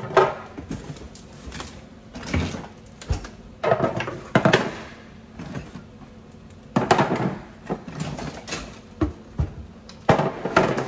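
Kitchenware clattering and knocking as trays and dishes are handled and set into a cabinet, in a handful of separate bursts a few seconds apart.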